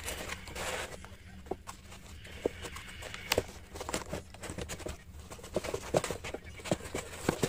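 Cardboard box being opened and handled by hand: rustling and scraping of card in the first second or so, then scattered light taps and knocks as the flaps and the plastic fittings inside are moved.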